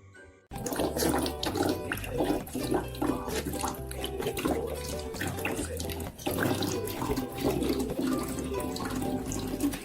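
Water running steadily from a tap, starting suddenly about half a second in, with background music underneath.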